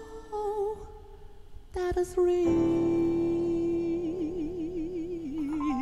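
Male singer holding one long, high sung note over piano chords, with a wide vibrato coming into the note about four seconds in.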